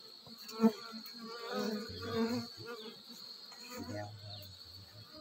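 Honeybees buzzing around the entrance of their nest, the buzz swelling and fading as single bees fly close past. There is a brief sharp bump about half a second in.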